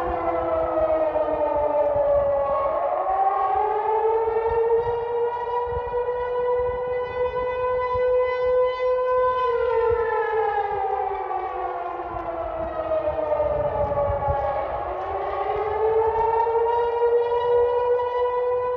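Warning siren wailing. Its pitch rises over a second or two, holds steady for several seconds, slides slowly down, then rises again and holds near the end. A low rumble runs underneath.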